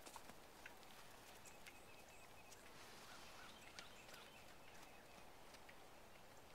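Near silence: faint outdoor ambience with a few soft, scattered ticks.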